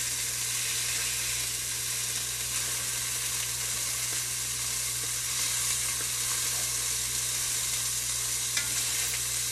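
Beef short ribs sizzling steadily as they sear in hot oil in an enameled cast-iron Dutch oven, pressed down with tongs to build a crust.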